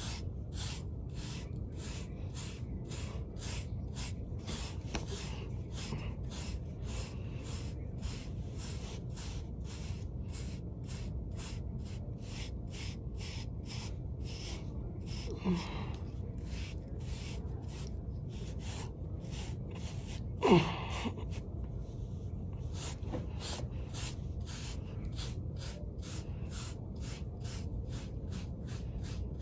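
Bristle hairbrush stroked over short hair in quick, regular strokes, a soft rasp about three times a second. Twice a brief vocal sound falling in pitch breaks in, the louder one about two-thirds of the way through.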